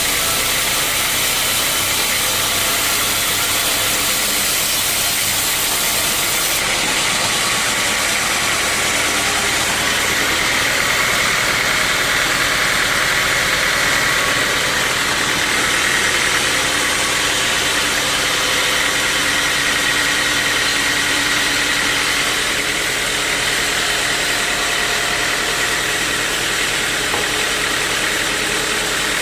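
Sawmill machinery running steadily and loudly, with a thin high whine coming in partway through.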